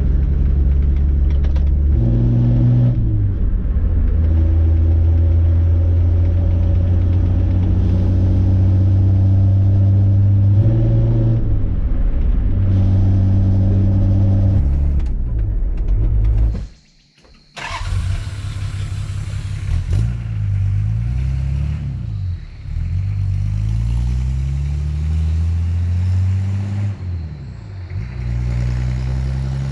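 Toyota Land Cruiser HJ60's 2H straight-six diesel engine running under way, with its note stepping down and back up as it changes speed. About halfway through, the sound cuts out for about a second. After that the engine note rises and falls again and again.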